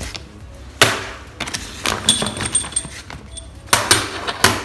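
Small metal parts of a pulley adapter kit being handled, with several sharp clinks and knocks and a short high squeak about two seconds in.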